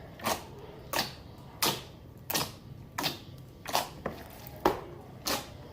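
Fingers poking a large beaded slime, each poke giving a sharp, brief pop or click; about eight pokes at a steady pace, one every two-thirds of a second or so.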